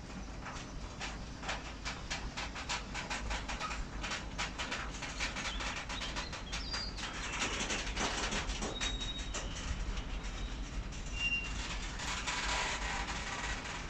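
Freight train of covered grain hopper wagons rolling past, its wheels clicking rapidly over rail joints with a steady rumble, and a few brief high squeaks midway.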